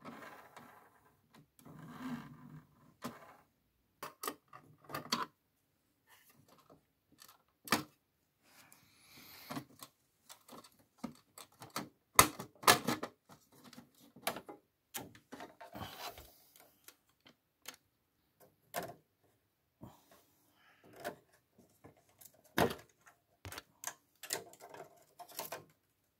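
Irregular clicks, knocks and rattles of a plastic CD loader mechanism against the sheet-steel chassis of a Sony micro hi-fi as it is worked loose and lifted out by hand, with softer scraping between the knocks.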